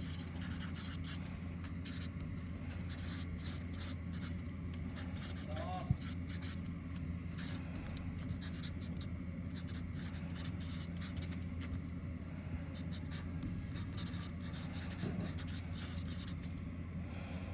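Felt-tip marker writing on cardboard: short scratchy pen strokes in bursts, with brief pauses between words.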